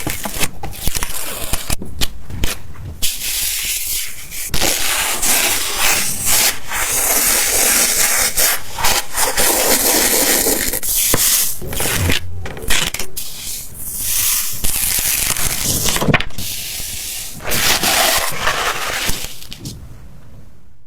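Gritty rubbing and scraping of abrasive sand on a surface, in uneven strokes with brief breaks and a long continuous hissing stretch in the middle, dropping off near the end.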